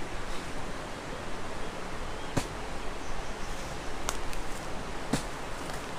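Chili pepper bush rustling as peppers are picked off by hand over a steady outdoor hiss. A few sharp snaps come through: one about two seconds in, and a quick run of three or four near the end.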